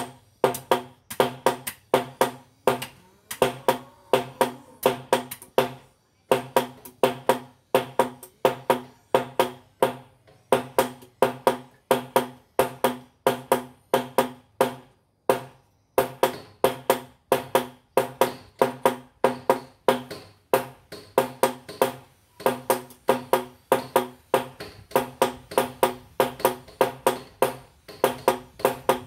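Two blacksmiths' hammers striking a red-hot golok (machete) blade on an anvil in a steady alternating rhythm, about two to three ringing blows a second. The blows pause briefly a few times.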